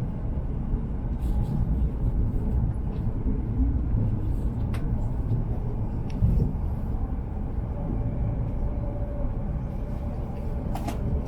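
Hokuriku Shinkansen train running: a steady low rumble with a few faint clicks.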